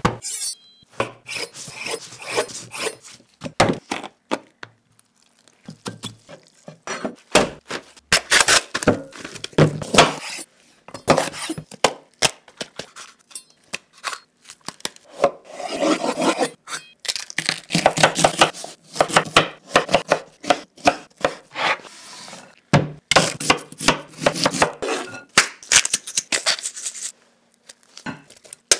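Food-prep sounds: a kitchen knife slicing and chopping bell peppers on a wooden cutting board, crisp cuts and knocks in irregular bursts with short pauses, along with food and utensils set down on the board and in a glass bowl.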